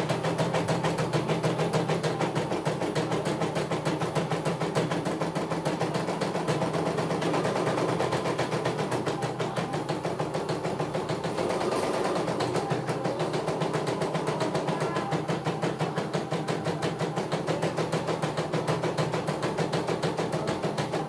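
CNY E900 computerized embroidery machine stitching a design: the needle runs at a rapid, even rhythm over a steady motor hum.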